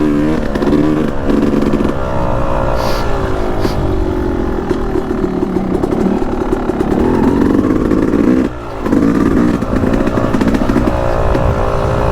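Yamaha YZ250X single-cylinder two-stroke dirt bike engine running under load on a trail ride, its pitch rising and falling with the throttle. About eight and a half seconds in it briefly drops off, then picks up again.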